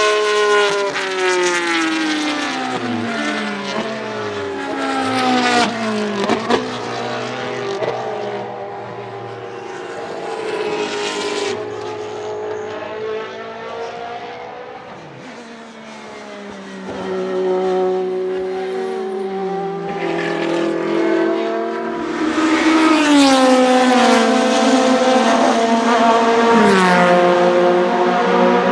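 Historic racing car engines on a circuit, several cars in turn, their engine notes sweeping down under braking and downshifts and rising again under acceleration. Quieter for a while in the middle, loudest over the last several seconds.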